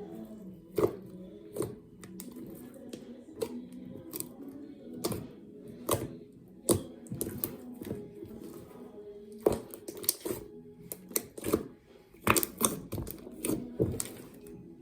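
Slime being squeezed and pressed by hand, making irregular sticky clicks and pops, some of them sharp and loud.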